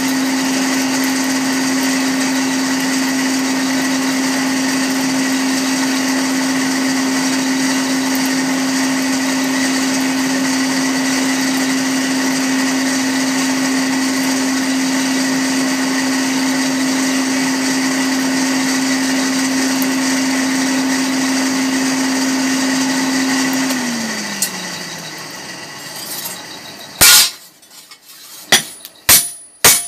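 Electric blower dug into the side of a blacksmith's furnace, running with a steady hum and whir; about 24 seconds in it is switched off and winds down, its hum falling in pitch. Near the end a hammer starts striking hot metal on an anvil, about two ringing blows a second, as a chopper blade's edge is beaten thin.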